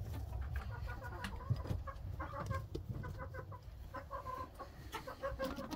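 Hens clucking in a string of short notes, with scattered clicks and rustling close by.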